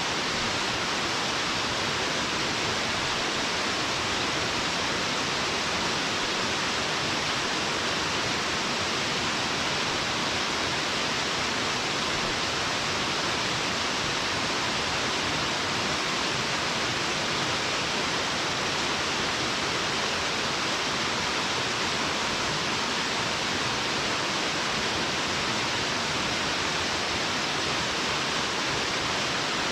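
Waterfall roaring steadily as water falls and splashes into its pool: a constant, even rush, strongest in its upper-middle hiss, with no change in level.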